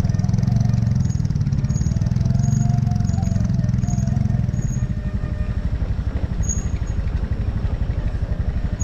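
A vehicle's engine running steadily as it drives along, a pulsing drone that gets quieter about five seconds in.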